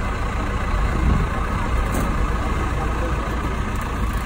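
A steady low rumble with a hiss over it, and faint voices in the background.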